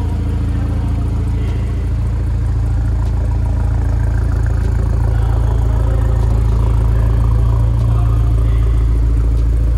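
BMW Z4's four-cylinder TwinPower Turbo engine idling steadily, a little louder in the middle.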